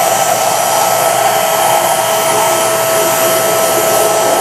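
Vacuum cleaner running steadily with an even, high whine, cleaning sanding dust off the cabinet frames.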